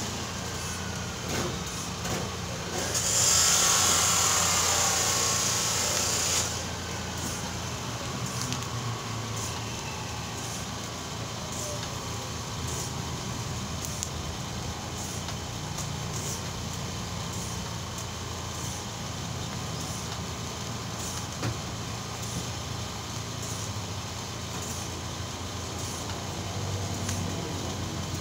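Three-stage PCP hand pump being worked by hand to charge a high-pressure tank, a short hiss of air on each stroke about every second and a half, over a steady low machine hum. A louder rushing hiss rises about three seconds in and stops suddenly a few seconds later.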